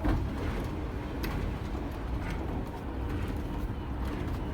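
Mekong slow boat's engine running with a steady low drone.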